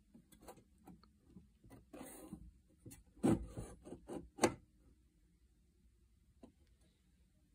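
Light knocks, clicks and scrapes of wood and a tool being handled on a wooden workbench, with two louder knocks about three and four and a half seconds in.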